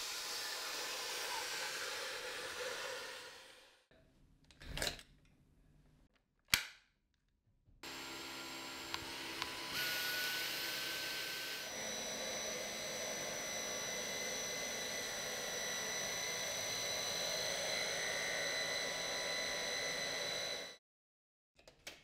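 Dyson Gen5detect cordless stick vacuum motor running steadily, then winding down about four seconds in. After a brief swell and a sharp click, it runs again with a steady high whine while driving a motorised mini tool's brush bar over a mattress, and cuts off suddenly near the end.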